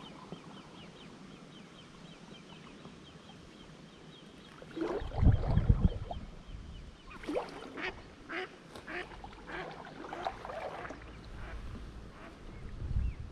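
Ducks quacking in a run of short calls, with a few loud low thumps about five seconds in.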